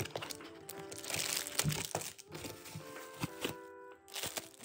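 Clear plastic wrap crinkling and crackling in bursts as it is handled and peeled off a ceramic mug, over background music.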